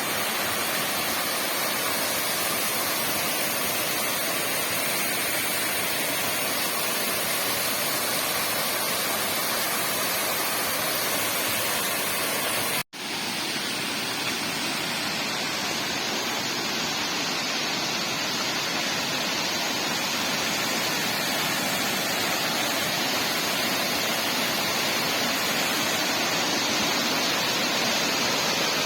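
Waterfall rushing steadily. The sound drops out for an instant about thirteen seconds in, then the same rushing carries on.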